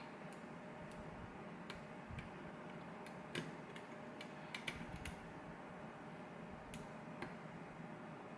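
Faint scattered clicks of lock picking: a short hook setting pin tumblers in a pin-tumbler lock against tension from a top-of-keyway pry bar, with a small cluster of quick clicks a few seconds in, over a low steady hum.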